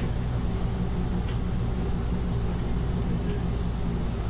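City bus under way, heard from inside the passenger cabin: the engine and drivetrain hum steadily, with road noise from the tyres.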